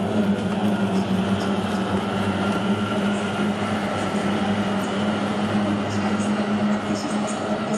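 Outboard engines of racing boats running together in a steady drone.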